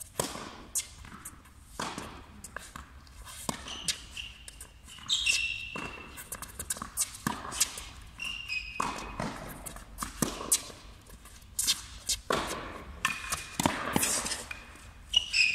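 Tennis rally on a hard court: a run of sharp hits as the ball is struck by the rackets and bounces, with shuffling footsteps and a few short high sneaker squeaks.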